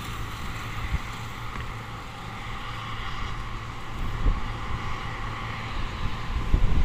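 Low, steady rumble of a distant Caterpillar 140G motor grader's diesel engine, with wind buffeting the microphone in gusts about four seconds in and again near the end. A passing motorcycle fades away at the start.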